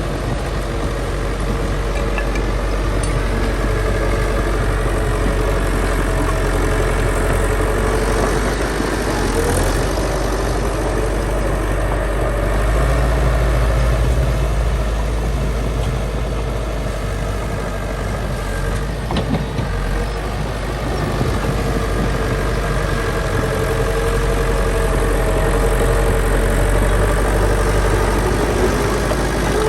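Heavy diesel engine of construction machinery running steadily, its pitch rising and falling slightly as it works.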